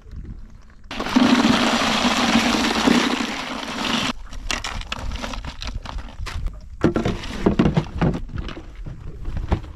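A loud rush of water lasting about three seconds, starting and stopping sharply, followed by scattered light knocks and clatter.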